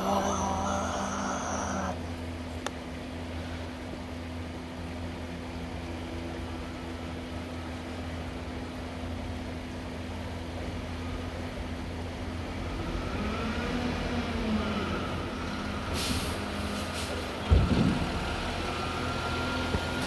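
Mack garbage truck with a McNeilus front loader pulling in, its diesel engine rising as it comes closer over the last several seconds. Near the end there is a short hiss of air brakes, then a single sharp thump.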